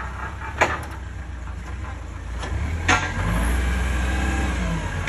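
CAT forklift engine running, with two sharp clanks, one about half a second in and one near three seconds; the engine gets louder around the second clank.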